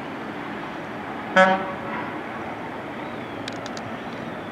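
A single short vehicle horn toot about a second and a half in, over steady street traffic noise. A few faint high clicks follow near the end.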